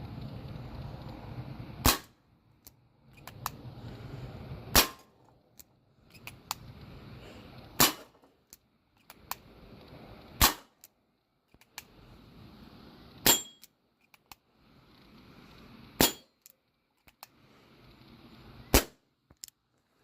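Webley air revolver firing .22 pellets: seven sharp shots, roughly one every three seconds, with a few faint clicks in between.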